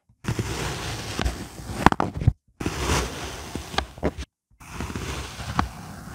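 Clear plastic cutter slicing down through a cube of kinetic sand: gritty crunching and crumbling of the packed sand with a few sharp crackles, stopping dead twice for a moment.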